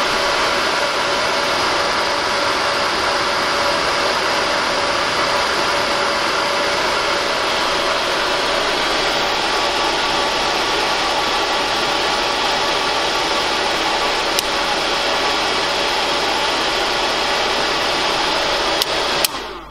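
A cooling fan runs with a loud, steady rush while 12 V DC flows through the breaker at 14 to 18 amps. About 19 seconds in, a sharp click is heard as the Clipsal AC miniature circuit breaker trips on the overload, and the fan noise dies away within about half a second.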